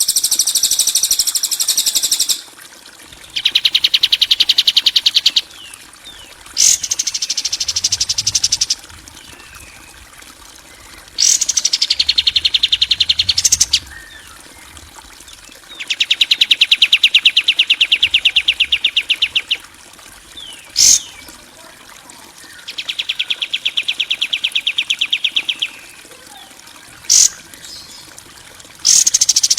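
Bird-training 'masteran' track of harsh rattling bird calls: seven fast, buzzy trills of two to three and a half seconds each, with short gaps between them. The trills alternate between a high, thin pitch and a lower one. Faint trickling water and insect or frog sounds run under the gaps.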